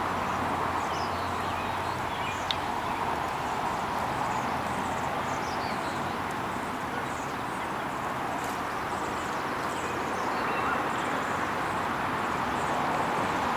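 Steady outdoor background rush, with faint high chirps that slide downward in pitch recurring throughout, and a single sharp click about two and a half seconds in.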